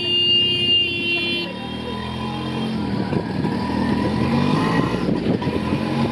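Road traffic: a vehicle horn sounds steadily and stops about a second and a half in. After that a small engine runs with its pitch rising and falling as it speeds up and slows.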